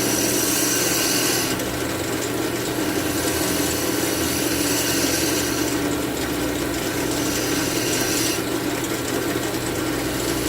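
Wood lathe motor humming steadily while a turning tool cuts a spinning cherry chair leg, the scraping hiss of the cut rising and falling as the tool works along the wood.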